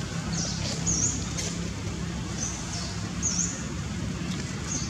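A small bird chirping short, high notes about four times, over a steady low hum and outdoor background noise.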